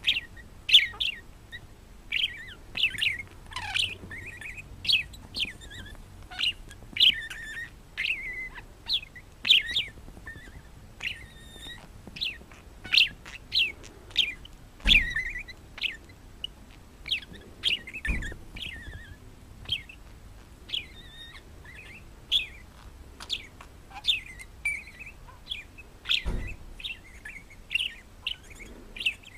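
Parrot chirping: short, sharp, falling chirps repeated one or two a second, with a few dull thumps in between.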